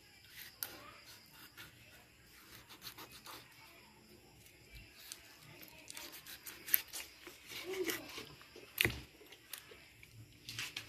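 Kitchen knife cutting through a raw red devil cichlid on a plastic cutting board: faint, scattered scrapes and clicks of the blade through flesh and skin, with a few sharper knocks about two-thirds of the way through.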